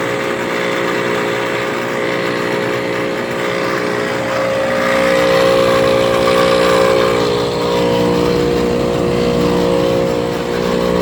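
1997 Ruud outdoor air-conditioning unit running with a loud, steady droning hum. The owner takes the terrible sound for a unit that is worn out and at the end of its life.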